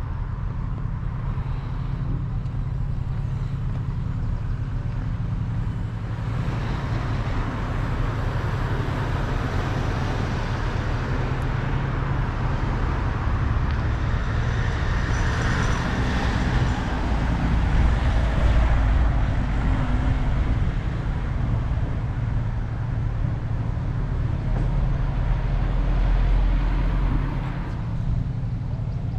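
Road traffic noise over a constant low rumble, with a passing vehicle swelling to its loudest about halfway through and then fading.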